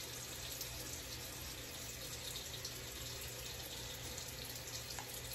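Steady, even rushing noise with a faint low hum underneath, the sound of a small bathroom with a running tap or an exhaust fan.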